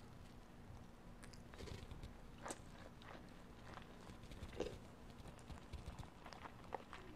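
Faint chewing of a mouthful of Spam musubi, picked up close by a clip-on microphone, with scattered small wet mouth clicks and smacks.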